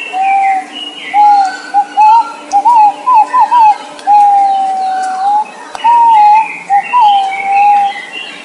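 Green pigeon singing: a run of clear, wavering whistles, some long and gliding, others short and fluttering, with fainter high chirps of other birds behind.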